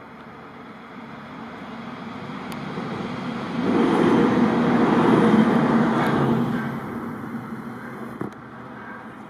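A car passing by: its rushing road noise swells over a few seconds, is loudest about four to six seconds in, then fades away. A short knock near the end.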